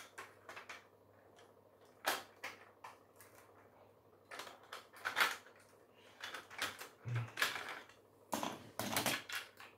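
Plastic Lego bricks clicking and clattering in irregular bursts as pieces of a brick-built model's fuselage are handled and pressed back into place.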